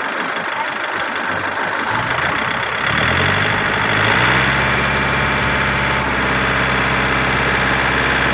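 Yanmar YM351A tractor's diesel engine starting up about two to three seconds in, its pitch rising briefly before it settles into a steady idle.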